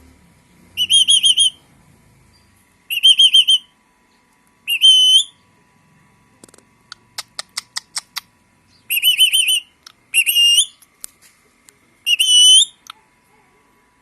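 Parrot whistling: six short, loud warbling whistles with a wavering pitch, some ending in an upward flick. Between the third and fourth whistle comes a quick run of about ten sharp clicks.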